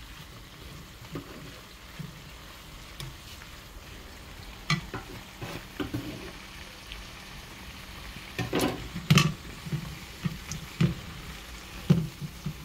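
Small green peppers sizzling steadily in a nonstick frying pan. A spoon stirs them, knocking and scraping against the pan in a run of strokes from about five seconds in, loudest a little past the middle and again near the end.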